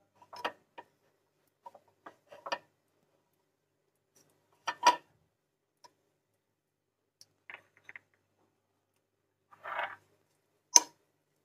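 Silicone spatula scraping and tapping against a nonstick frying pan while spreading butter around it: a handful of short, separate scrapes and clicks, the loudest about five seconds in and a sharp click near the end.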